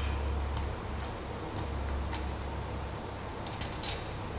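Faint clicks and taps of metal antenna parts being handled and fitted together, as a clip is pushed onto the VHF dipole rod. There is a scattering of ticks and a short cluster near the end, over a low steady hum.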